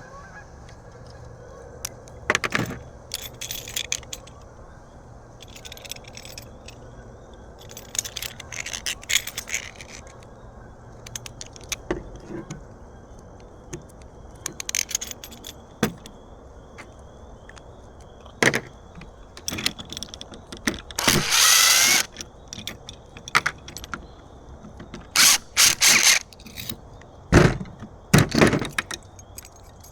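Scattered clicks, clinks and short rattles of small hard parts being handled, with one longer scraping rustle about two-thirds of the way through.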